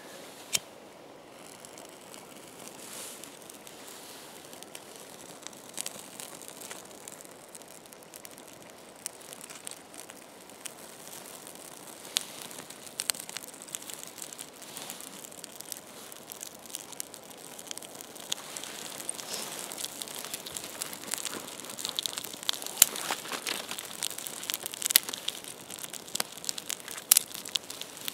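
Small campfire of birch bark and twigs being lit and catching: a rustling crackle, with sharp snaps and pops that come more often and louder in the last third as the flames take hold.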